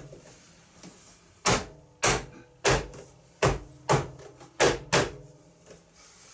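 Seven sharp knocks spread over about three and a half seconds as the plastic front bull bar of a kids' ride-on buggy is knocked by hand into place on the body.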